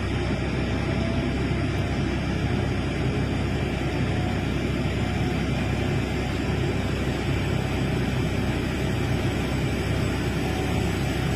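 Heavy excavator's diesel engine running steadily, a continuous low drone with no breaks.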